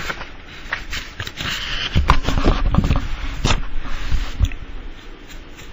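Rustling with scattered clicks and knocks, and a few louder low thumps in the middle.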